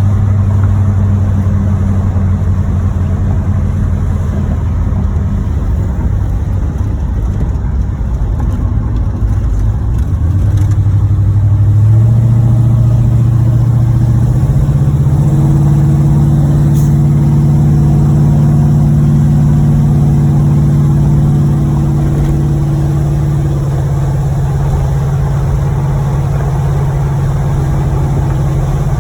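1986 Chevrolet Monte Carlo SS's 305 V8 running while the car is driven. The engine has a rod knock. The engine's pitch steps up a few times about a third of the way in, then holds steady.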